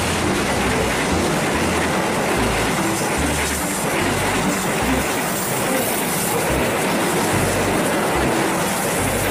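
Passenger train carriages passing close by at speed: a steady rush of wheel and rail noise with irregular low thumps from the wheels on the track.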